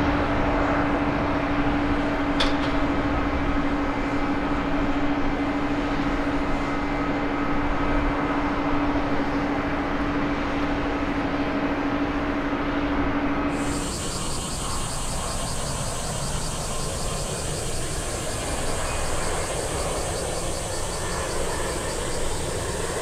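Boeing 787 jet engines at takeoff power, a steady rumbling roar with a constant low hum as the airliner climbs away. About 14 seconds in the sound changes abruptly to another 787 on approach to land, its engines at low power with a high hiss and a thin high whine.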